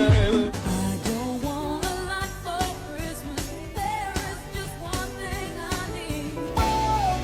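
Background pop music with a singing voice and a steady beat.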